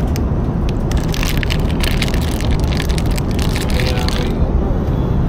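Plastic snack wrapper crinkling and rustling as it is handled, for about four seconds, over the steady low drone of an airliner cabin.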